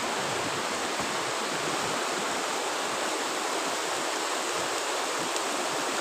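Stream water rushing steadily, an even hiss with no breaks.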